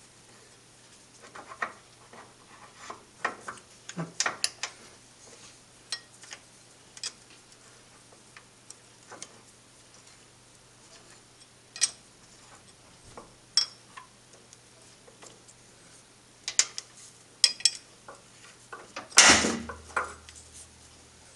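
Hex key clicking and clinking against the steel bed stop of a Colchester Triumph 2000 lathe as its clamp screw is loosened: scattered short metal clicks, then a louder metal clunk near the end as the bed stop is lifted off the lathe bed ways.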